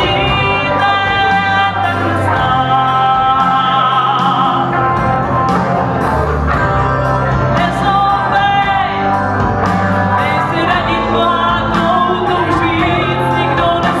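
Live band playing a song: a woman singing into a microphone over electric guitar, bass guitar and keyboard, with a steady beat.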